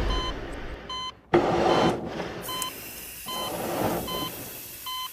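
Short electronic beeps repeating at a steady pace, a little under once a second, over a noisy background.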